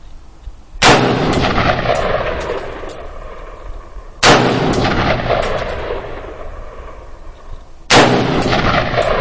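AR-15-style rifle fired three single shots, about three and a half seconds apart. Each crack is followed by a few fainter echoes and a long rolling fade.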